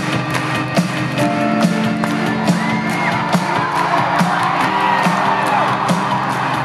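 Live rock band playing the opening of a song, with a steady beat a little faster than once a second under held chords, while the arena crowd whoops and cheers over it.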